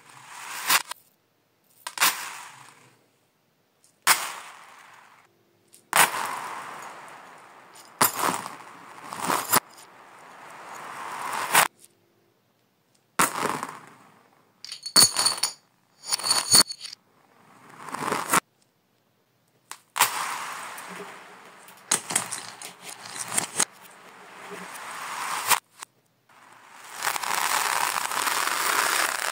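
Small plastic beads and rings clattering and rattling over a laminate floor, played in reverse: repeated swells of rattling, several building up and cutting off sharply, and a dense rattle near the end.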